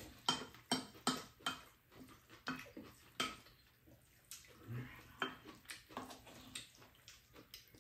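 Spoons tapping and scraping against ceramic bowls and a frying pan while kimchi rice is scooped and mixed: a run of sharp, irregular clicks, about two a second.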